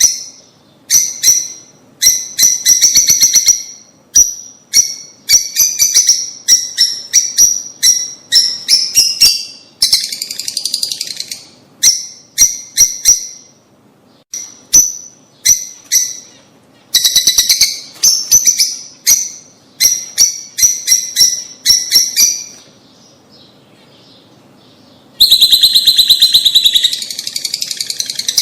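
Lovebirds chirping in quick bursts of rapid, high-pitched chirps, with a short lull about three-quarters of the way through, then a dense, unbroken chatter near the end.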